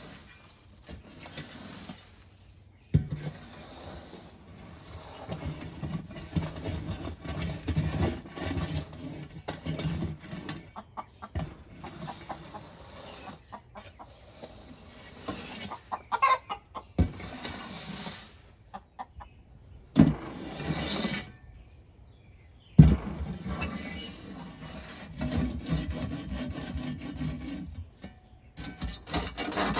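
A hen in the nesting box clucking, disturbed by someone working in the coop while she tries to lay. Under her calls come scraping and several sharp knocks as old compacted bedding is scraped out of the coop.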